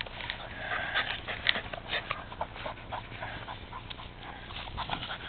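Rat terrier panting and snuffling close to the microphone, mixed with short irregular rustles and clicks.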